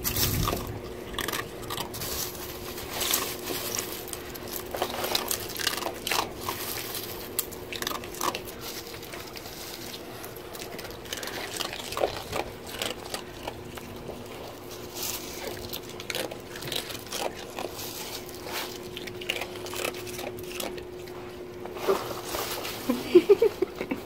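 Sea otter biting and chewing sea urchins: irregular crunching and cracking of the spiny shells, over a steady hum. Near the end come a few short rising squeaks.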